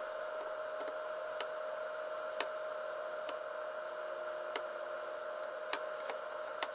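Wooden chopsticks clicking now and then against a glass bowl and bento boxes while scooping ground-chicken soboro, several light clicks spread out, over a steady background hum.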